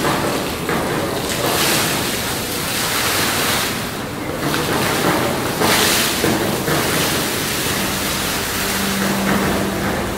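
Vřídlo hot spring, a geyser-like jet of thermal water, shooting up and splashing back into its stone basin: a steady rush of water that swells and eases every second or two.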